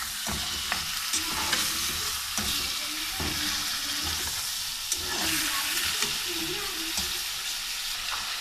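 Bone-in beef pieces sizzling in hot oil in an aluminium pot as they brown, stirred with a metal spoon that scrapes and clinks against the pot now and then.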